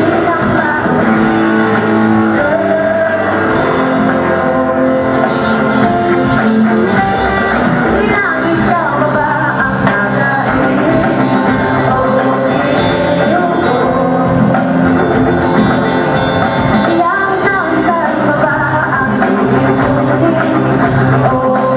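Live pop-rock performance: a woman singing over electric guitar and drums.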